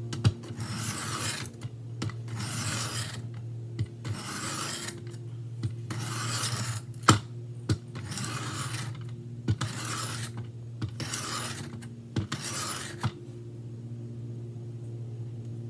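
Knife blade drawn across the plate of a Work Sharp Benchstone sharpener in a series of rasping strokes, roughly one every second and a half, with light clicks as the blade meets the angle guide. The strokes stop about 13 seconds in.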